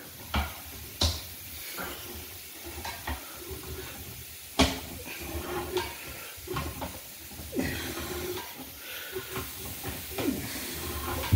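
Sewer inspection camera's push cable being fed down the pipe: irregular clicks, knocks and scraping over a steady hiss, with a few short squeaks.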